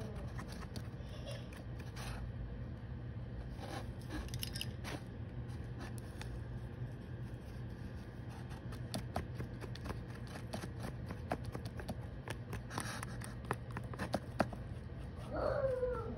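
Light scraping, tapping and clicking as a painted clay piece and a sheet of card are handled on a table, over a steady low hum. Near the end comes a short vocal sound whose pitch rises and then falls.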